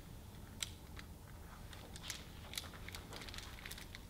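A hardcover picture book's pages being turned and handled: faint scattered paper rustles and small clicks.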